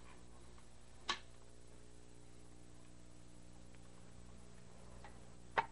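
Quiet room tone with a faint steady hum, broken by a sharp click about a second in and two more clicks close together near the end, as a small two-reel tape device is handled.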